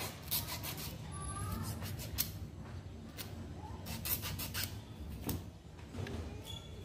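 Magnet wire being wound by hand around a toroidal transformer core: irregular rubbing and scraping of the wire with scattered sharp clicks.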